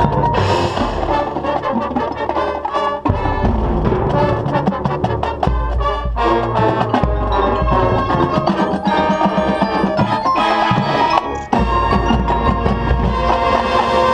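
Marching band playing its field show: brass with percussion, including mallet keyboards such as marimba and glockenspiel, in a dense, loud passage with two brief breaks.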